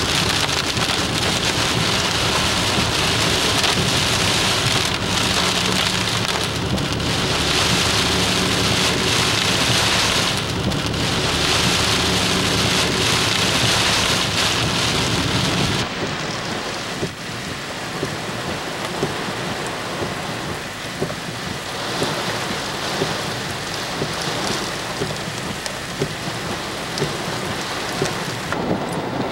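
Heavy tropical-storm rain on a car while it drives, a loud steady wash with the car's road noise underneath. About halfway through it cuts to lighter rain with single drops ticking on the car.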